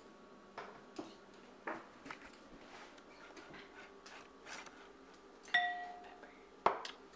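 Quiet clicks and taps of a plastic measuring spoon working over a glass mixing bowl while cayenne pepper is added. About five and a half seconds in comes a brief ringing knock, and a sharp click about a second later.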